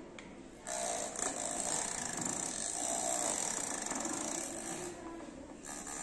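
Small electric motor and fan of a homemade plastic-bottle vacuum cleaner, switched on about a second in and then running with a steady, high-pitched whir, dipping slightly near the end, as it sucks up bits of paper.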